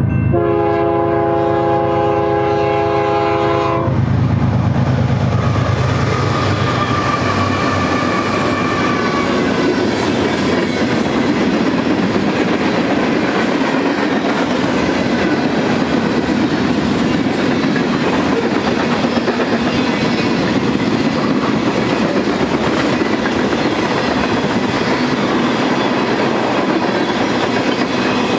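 BNSF ES44DC diesel locomotive's air horn sounding a chord of several notes for the grade crossing, cutting off about four seconds in as the lead units pass. Then a manifest freight train's cars rolling by steadily, wheels clacking over the rail joints.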